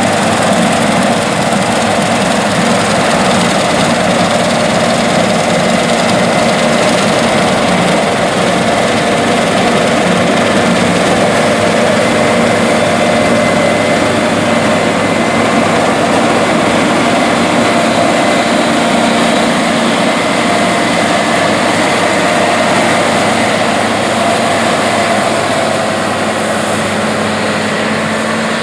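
New Holland CR8090 twin-rotor combine harvesting wheat: its diesel engine and threshing machinery make a steady drone with a thin whine, easing slightly near the end.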